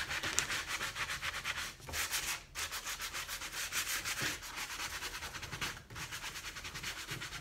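Hand sanding sponge scrubbing quickly back and forth over fresco-painted rough wood, wet-sanding the paint back so the grain shows through for a distressed finish. The strokes come several a second, with short pauses about two and six seconds in.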